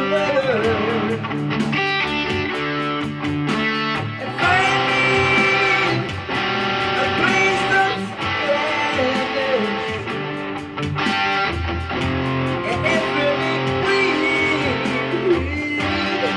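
Instrumental rock passage led by a PRS electric guitar, its notes bending and wavering, over a backing of bass and steady drum hits.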